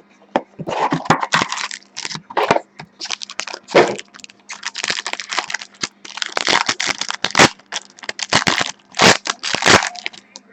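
Plastic wrapping crinkling, crackling and tearing in irregular handfuls as a sealed box of trading cards and its pack are opened.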